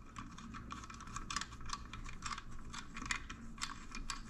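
Faint, irregular small clicks and ticks, several a second, from hands working the fittings of a chrome motorcycle passing-light housing.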